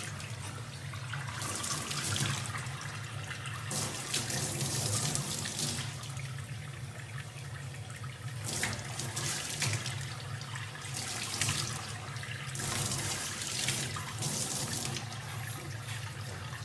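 Tap water running into a stainless steel sink and splashing off a young chimpanzee sitting under the stream, with louder surges of splashing every few seconds.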